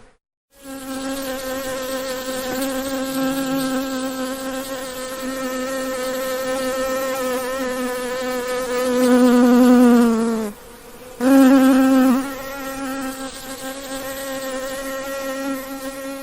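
A bee buzzing in a steady, pitched drone. It swells louder about nine seconds in, drops in pitch and breaks off for a moment, then starts again loud and settles back to a steady buzz.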